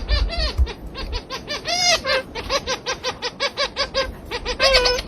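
A bird calling in a rapid series of short, arching pitched notes, about four to five a second, louder near the end.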